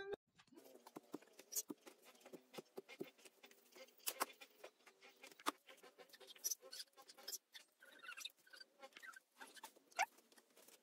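Faint, irregular clicks and light taps of dry wooden sticks being handled and fitted together into a frame.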